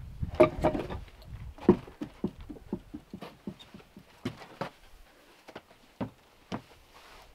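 A few loud wooden knocks as a hand-made wooden bench is set down on plank decking, then a run of lighter taps and clicks on the boards, about four a second at first and then sparser, as a person in boots and a golden retriever walk about on the deck.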